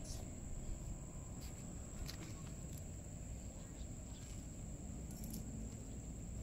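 Steady high-pitched insect drone over a low outdoor rumble, with a few faint clicks.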